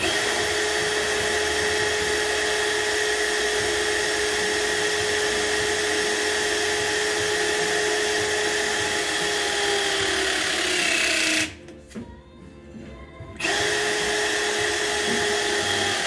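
Milwaukee M18 Force Logic 12-tonne cable crimper's brushless motor and hydraulic pump running as it crimps a lug onto a cable. A steady whine sinks in pitch just before cutting off about eleven seconds in, then starts again about two seconds later.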